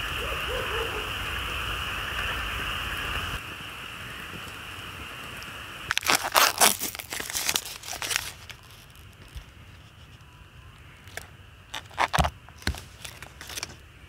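A steady hiss from the burning Firebox wood stove for the first three seconds or so. After a cut, plastic packaging crinkles and tears loudly for about two seconds as a tofu tray is opened. Near the end come a few sharp taps of a knife against a wooden cutting board.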